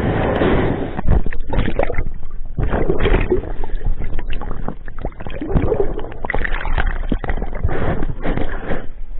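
Water churning and sloshing around an underwater camera in shallow sea water, an irregular rushing noise broken by many short knocks against the housing.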